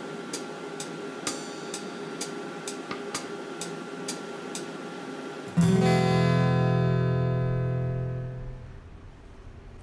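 BALMUDA The Range microwave oven's guitar-like sound effects: a short muted tick about twice a second over a steady hum while it heats. About five and a half seconds in, a loud strummed guitar chord rings out for about three seconds, marking the end of heating.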